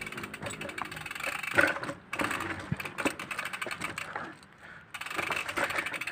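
Bicycle freewheel ratchet ticking rapidly as the bike coasts, briefly stopping about four and a half seconds in.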